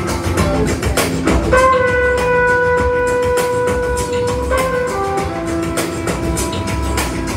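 Recorded music playing through a Cosmic Lab 3000 MK II solid-state stereo integrated amplifier: a steady drum beat, with one melodic note held for about three seconds from a second and a half in, then shorter notes.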